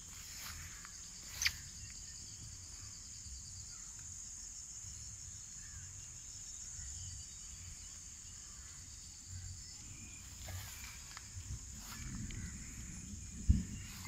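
Steady high-pitched chorus of insects in wet vegetation, over a low patchy rumble. A click sounds about a second and a half in, and a sharp thump near the end.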